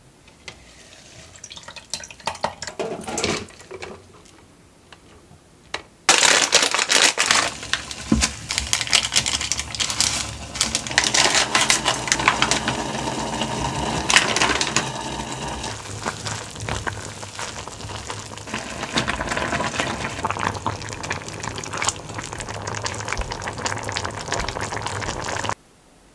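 A few light clicks at first. Then, starting abruptly about six seconds in, soup bubbling at a boil in a small pot with a dense crackle as sliced rice cakes are dropped in. It cuts off sharply just before the end.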